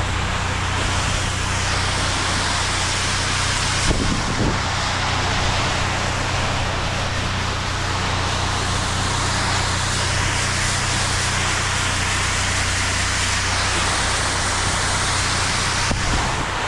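Pressure washer running steadily: a low motor hum under the hiss of the water spray as a house is rinsed with plain water after a bleach wash. A short knock about four seconds in.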